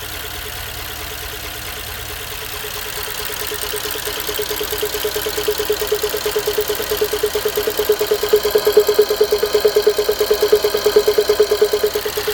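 A 2011 BMW X5 M's S63 twin-turbo V8 running, with a weird noise that the owner traces to the passenger-side turbo: a rapidly pulsing, fluttering mid-pitched tone. It grows louder from a few seconds in, peaks, then eases slightly near the end.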